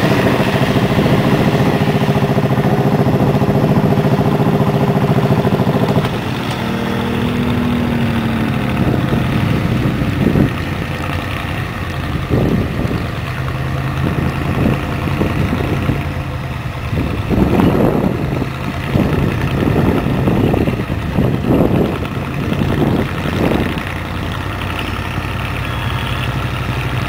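Ford F350 mud truck's diesel engine working hard on a steep dirt hill climb: a loud, steady run for the first six seconds, then a lower drone with a short rising tone, followed by a string of sharp revs about a second apart through the middle of the climb.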